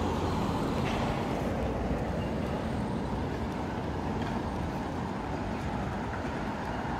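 Steady road traffic noise on a busy city street: cars and buses running past.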